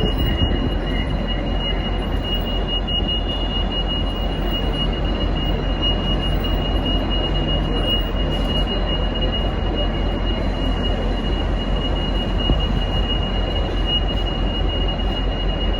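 V/Line N class diesel-electric locomotive idling at the platform: a steady low rumble and hum, with a steady high-pitched whine over it.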